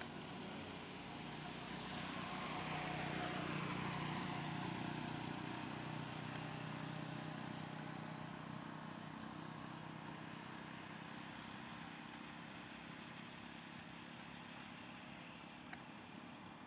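A motor vehicle passing by. Its engine sound grows to a peak a few seconds in, falls in pitch as it goes past, then fades away slowly.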